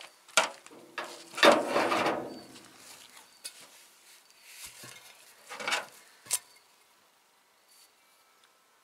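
Steel pipe of a homemade smoke generator being handled, with metal knocks and scraping clatter. A sharp click comes first, then a longer, louder rattling scrape about a second and a half in, and a few more knocks around six seconds.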